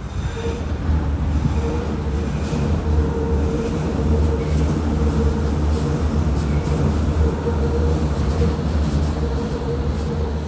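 Hamburg U-Bahn train running on an elevated steel viaduct, a steady low rumble with a humming tone over it.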